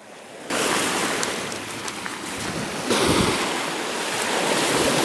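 Small lake waves washing and breaking on a sandy, pebbly shore, with wind buffeting the microphone. The sound comes in about half a second in, and a wave surges louder about three seconds in.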